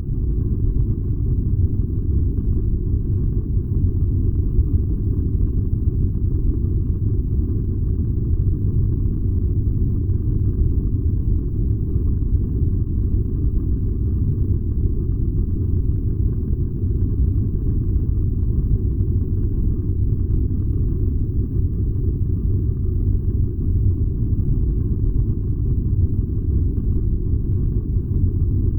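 Furnace running: a steady, deep, even rumble with no distinct tones or rhythm.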